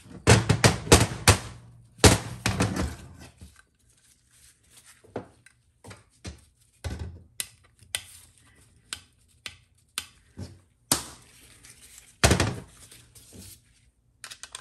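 Irregular metal clicks, taps and knocks from a hand tool working in a bore of a TH350 aluminium valve body casting and the casting being handled on the bench. Clusters of louder knocks come at the start and again near the end, with lighter ticks between.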